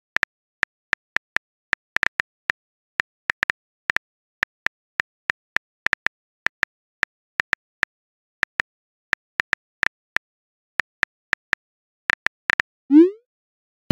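Smartphone keyboard typing clicks, about two to three a second, as a message is typed out. Near the end comes a short rising whoosh as the message is sent.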